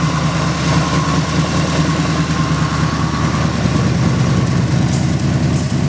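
1970 Ford Mustang Mach 1's V8 with headers idling steadily, with a thin high whine that fades out a little past halfway.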